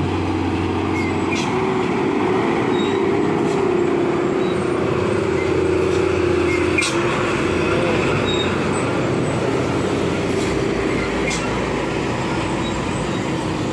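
Heavily loaded diesel cargo truck labouring slowly up a steep grade, its engine running steadily under load as it passes close by. The engine note changes about seven seconds in.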